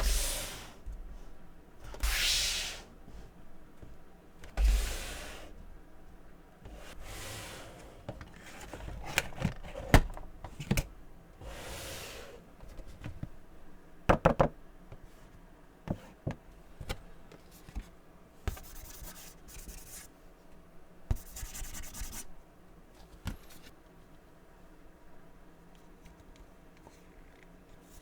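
Cardboard Funko Pop box and its plastic insert being handled: a run of short rubbing and sliding swishes, sharp taps and knocks around the middle, and two longer scraping patches later on.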